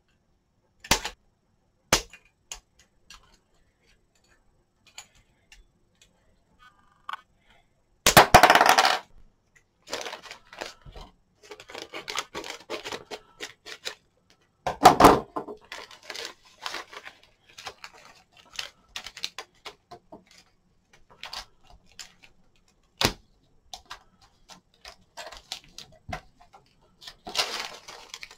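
Scissors snipping plastic parts off a model kit's sprue frames with sharp clicks, then the crinkling and rustling of small plastic bags of parts being handled and opened, with a loud burst of rustling about 8 seconds in and another around 15 seconds.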